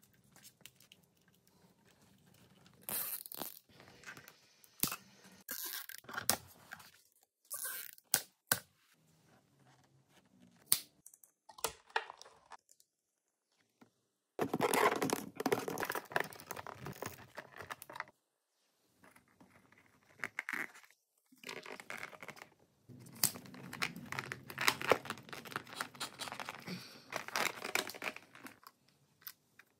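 Close-up handling noise of hands working electrical wires and clear plastic tubing on a motorcycle: irregular bursts of rubbing and scraping with sharp clicks. The two longest bursts come about halfway through and near the end, broken by short spells of dead silence.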